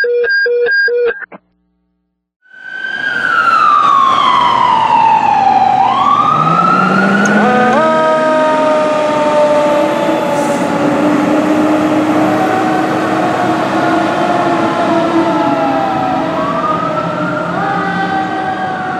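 A short run of electronic beeps, then a fire truck's Federal Q mechanical siren winding down and back up, with its air horns sounding long steady blasts over the siren through the middle. The siren rises again near the end.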